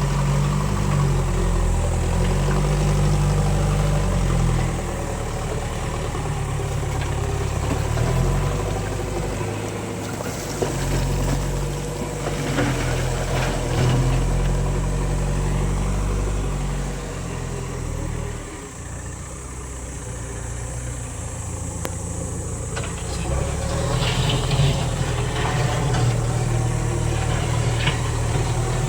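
Heavy diesel machinery engine running under load, its engine speed rising and falling several times, with scattered knocks and clatter now and then.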